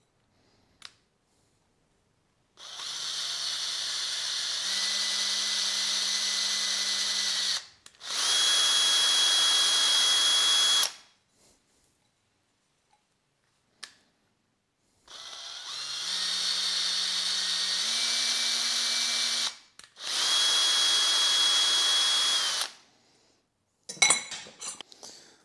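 Electric drill drilling holes in aluminium extrusion profiles, running in two pairs of bursts. In each pair the first run has a motor hum that steps up in pitch, and the second is louder and higher. Near the end there is a short metallic clatter of the profiles being handled.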